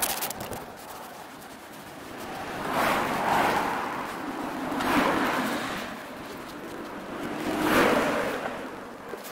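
Cars passing on the street: three swells of rushing tyre and engine noise, each rising and fading over a couple of seconds, with a few brief high clicks at the very start.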